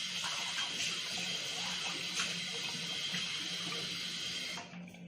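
Kitchen tap running steadily into a glass, shut off near the end.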